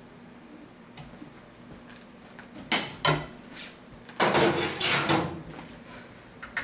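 Manual screen-printing press being worked: two sharp clunks as the hinged print head is raised off the printed jersey, then about a second of clattering and rubbing as the garment is handled on the pallet.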